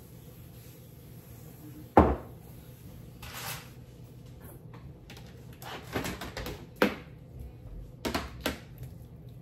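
Kitchen clatter of things being handled and set down: a sharp knock about two seconds in, the loudest sound, then a short swish and a few scattered clicks and knocks.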